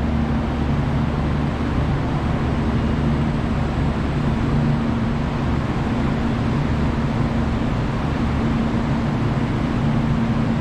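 Steady low hum of electric trains at a station platform, with a few held low tones and no sudden events.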